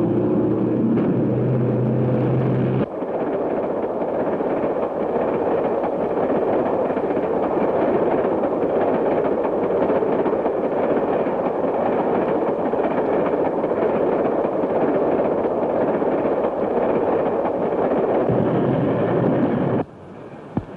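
Steam train running at speed: a loud, steady roar of rushing noise that cuts off suddenly about a second before the end. It is preceded by a few seconds of held, stepped tones.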